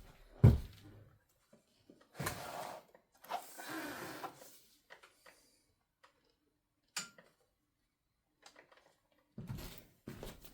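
Handling noises: a heavy thump about half a second in, then scraping and rustling twice, a sharp click about seven seconds in, and more rustling near the end.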